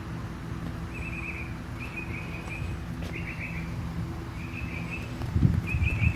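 Small songbirds chirping in short repeated phrases, over a steady low hum, with a brief low rumbling noise near the end.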